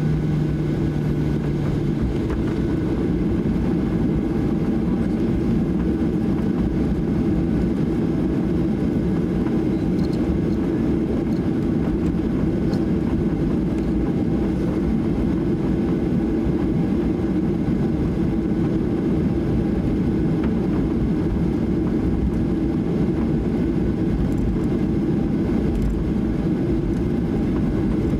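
Steady cabin noise inside a Boeing 737-800 taxiing, its two CFM56-7B turbofans running at taxi power. A low hum stops about two seconds in.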